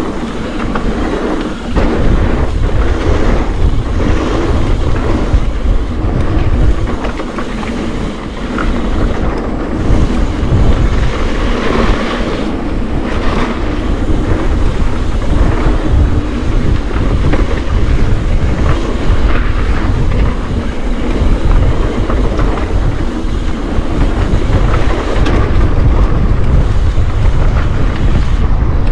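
Mountain bike riding down a dirt flow trail: wind rumbling on the microphone, tyres rolling over dirt and the bike rattling over bumps.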